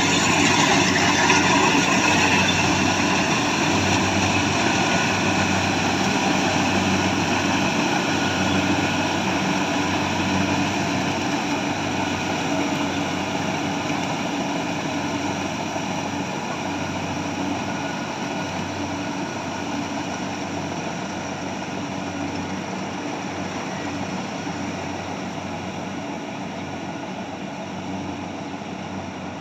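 Combine harvester running with a steady mechanical hum, gradually growing fainter as it moves away.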